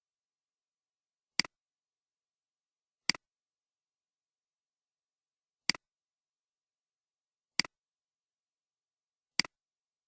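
Computer mouse button clicked five times at irregular intervals, each a sharp click followed at once by a softer release click, with dead silence between.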